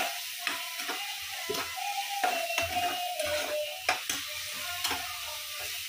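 Steel spatula scraping and knocking against a nonstick kadai as chopped mushrooms, tomatoes and spice powders are stirred and fried over a gas flame, with a light sizzle. The spatula strikes come irregularly, several a second.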